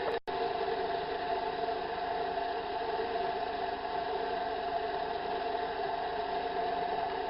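Metal lathe running steadily while turning a steel bar, a constant machine hum with several steady tones. The sound drops out for an instant just after the start.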